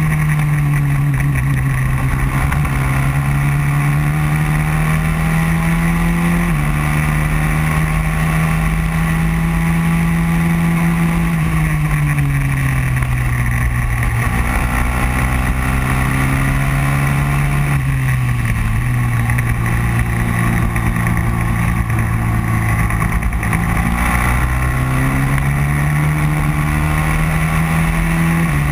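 Racing kart engine heard from onboard at racing speed, its pitch slowly climbing on the throttle and falling off into corners several times, with two abrupt steps in pitch, about a quarter of the way in and at the very end.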